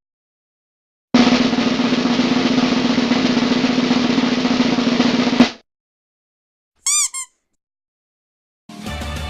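Snare drum roll lasting about four seconds, ending in a single sharp hit. A few seconds later come two quick high-pitched chirps, and music starts near the end.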